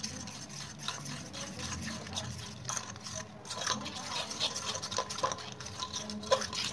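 Batter of whisked egg whites, powdered sugar and rice flour being stirred by hand in a bowl: a steady run of quick soft scrapes and light clicks of the utensil against the bowl.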